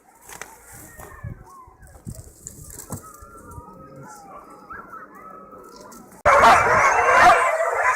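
A pack of sled huskies yelping and howling: faint, scattered calls at first, then a loud, dense chorus that cuts in suddenly about six seconds in.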